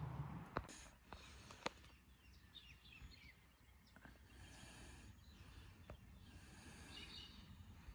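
Quiet bush ambience: faint, distant birds chirping, with a low rumble dying away about half a second in and a few sharp clicks in the first two seconds.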